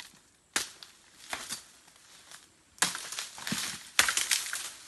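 Dry palm fronds and undergrowth being cut and dragged by hand: three sharp chopping strikes, the last two each followed by about a second of crackling and rustling of dry leaves and stalks.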